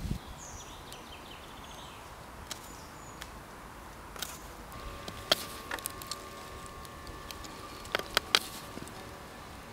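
A small knife whittling a green rowan stick: sharp, scattered clicks and snicks of the blade cutting the wood. They come a few at a time from about four seconds in, with a quick cluster of three around eight seconds.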